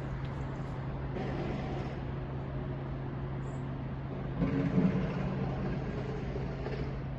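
Steady outdoor city background noise with a constant low machine hum, and a louder engine-like rumble swelling briefly about four and a half seconds in.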